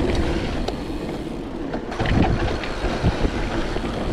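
Gravel bike rolling fast downhill on dirt singletrack: knobby tyres on hard-packed dirt with a steady rush of wind noise, and frequent small knocks and rattles from the bike as it goes over bumps.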